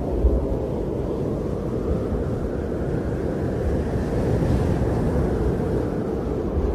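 Blizzard wind blowing across the microphone: a steady low rush with irregular low buffeting thumps.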